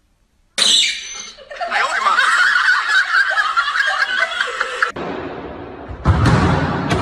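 A young girl laughing hard, high-pitched and continuous, after a brief silence at the start. About five seconds in the sound changes abruptly to a low rumble with a sharp thump.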